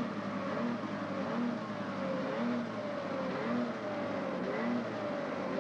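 A snowmobile engine running, its pitch sagging slowly and picking back up in a pulse that repeats about once a second.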